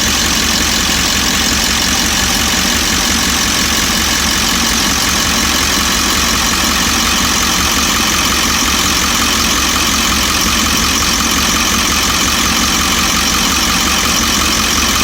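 Ford E350's 7.3 L Power Stroke V8 turbo-diesel idling warm, steady, with a fast, even ticking knock running through it. The owner cannot place the knock and wonders whether it is an injector, the normal diesel cackle, or something worse.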